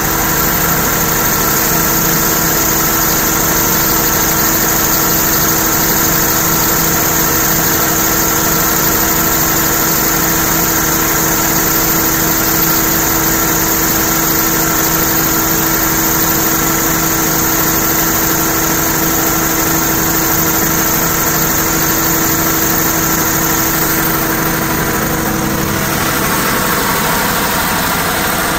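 Perkins-engined 500 kVA diesel generator set running steadily at constant speed, a loud even drone with a constant hum at one pitch.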